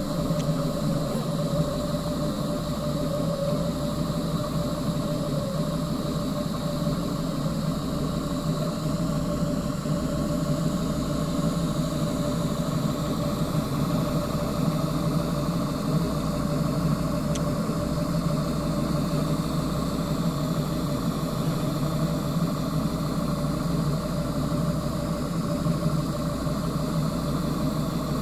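A CNC router converted to a 3D printer running a print: its stepper motors and machine make a steady mechanical hum with faint wavering tones.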